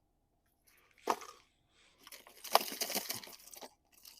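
Plastic lure packaging crinkling and rustling as it is handled: a short crackle about a second in, then a longer crackling stretch with small clicks from about two seconds in.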